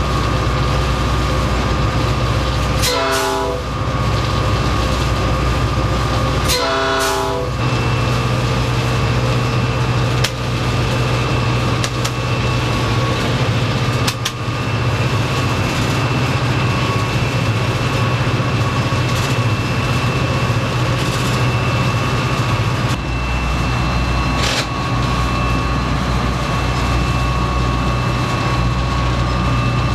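Steady drone of a diesel locomotive heard from inside its cab as the train runs, with a thin steady whine over it. Two short horn blasts sound about 3 and 7 seconds in, and a few sharp knocks come from the track later on.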